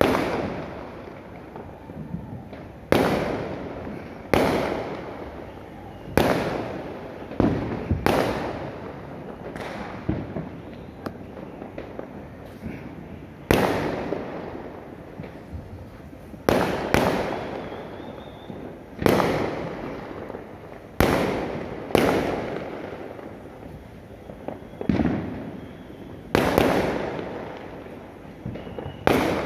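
Aerial fireworks shells bursting one after another at uneven intervals of one to three seconds. Each sharp bang is followed by an echo that dies away over about a second.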